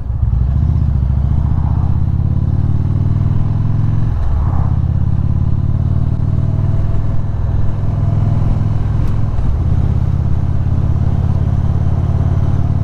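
Indian V-twin cruiser motorcycle engine running on the road, climbing in pitch as it accelerates, with a brief drop about four seconds in, then holding a steady pace.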